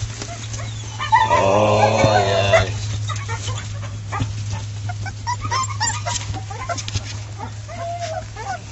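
A dog gives one long whining cry lasting about a second and a half, starting a little after a second in. It is followed by American Pit Bull Terrier puppies making many short squeaks and whimpers.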